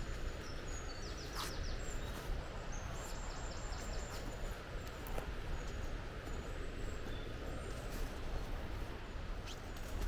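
Small birds calling with short, high chirps and a quick run of notes about a second and a half in, over a steady rushing background noise.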